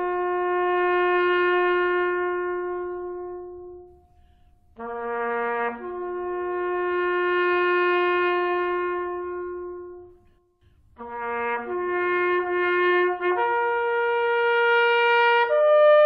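A solo bugle playing a slow call. A short low note leaps up a fifth to a long held note that dies away, and this happens twice. A third phrase then climbs step by step to higher held notes near the end.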